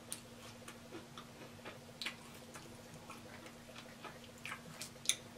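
Close-up mouth sounds of someone chewing chicken wings: irregular soft wet clicks and smacks, a few sharper ones about two seconds in and near the end, over a faint steady hum.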